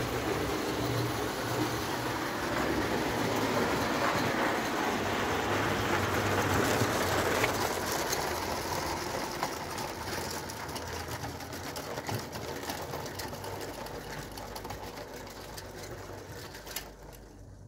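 Tinplate O gauge toy steam locomotive pulling its tender and coaches along tinplate track, its mechanism whirring and the wheels rattling on the rails. It grows loudest as the train passes close, then fades as it runs on.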